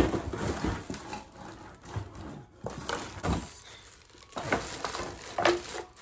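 Knocks and clatter of new non-stick pots, pans and lids being unpacked and handled, with a sharp knock right at the start and scattered lighter knocks after.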